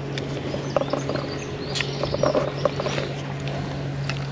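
Shetland ponies chewing and tearing grass, a run of soft crunching clicks, over a steady low hum like a distant engine. A few faint bird chirps come in about two seconds in.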